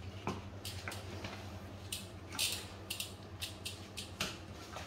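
An aluminium folding bike being lifted and handled, its parts giving a string of light clicks and rattles, one a little louder about halfway through, over a steady low hum.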